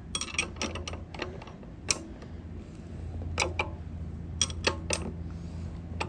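A wrench clicking and ticking on the seat-post clamp nut of a bicycle saddle as the nut is tightened: sharp metal clicks, several in the first second, then a few scattered ones.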